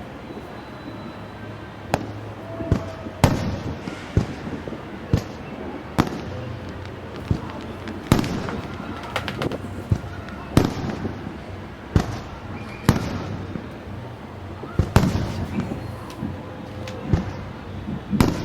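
Aerial fireworks bursting at a distance, a sharp bang every second or so over a continuous rumble of many shells going off across the city.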